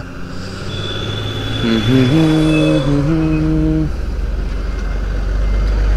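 Hero Super Splendor motorcycle riding through town traffic: a low engine and wind rumble that grows louder near the end. From about two seconds in, a pitched sound holds a note in two steps for about two seconds over the rumble, alongside a thin high tone.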